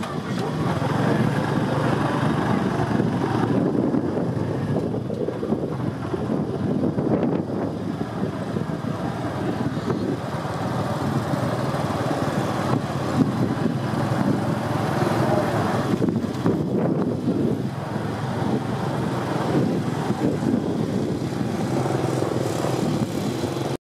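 Motorbike engines running with steady street-traffic noise.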